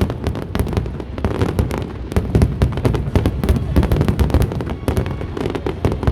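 Fireworks display going off in a dense barrage: rapid, irregular bangs and crackles, several a second, over a continuous deep rumble.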